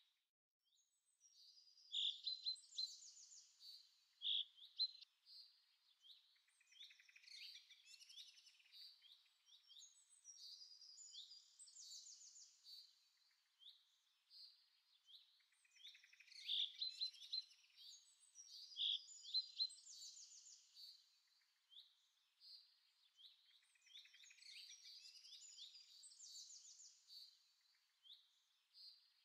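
Songbirds chirping and trilling, faint, with a few louder sharp chirps in two clusters. The same sequence comes round again after about fifteen seconds, like a looped recording.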